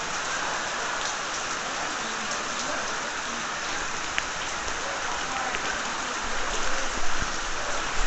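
Steady rushing water noise from a flood scene, heavy rain or fast floodwater, with a low rumble joining near the end.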